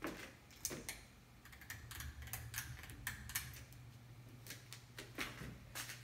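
Ceiling fan pull-chain switches clicking as the light kit is switched off and the fan is started, followed by a scatter of smaller clicks. The Kenmore fan motor's steady low hum comes in about a second and a half in and holds as the blades spin up.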